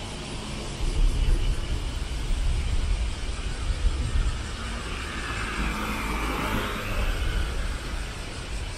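Road traffic: a steady low rumble of vehicles, with one passing close by and swelling then fading about five to seven seconds in.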